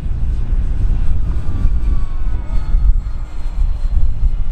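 Electric motors and propellers of an FMS 1700mm F7F Tigercat twin RC plane buzzing as it flies past, the pitch falling about a second and a half in, over a loud low rumble.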